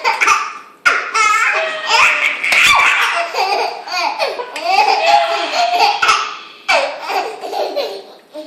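Five-month-old baby laughing in repeated bursts of belly laughs and giggles, with short breaths and pauses between them.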